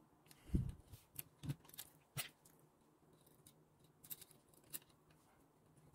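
Faint, scattered clicks and taps of small plastic and metal parts of a Bambu Lab A1 Mini extruder being handled and fitted back together, with a soft low thump about half a second in.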